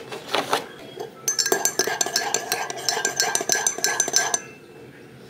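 A teaspoon stirring coffee in a glass mug, clinking rapidly against the glass for about three seconds, with a few knocks just before and a stop near the end.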